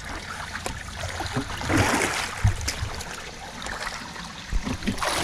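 Pool water splashing and sloshing as children swim and move about in it, with a louder splash about two seconds in.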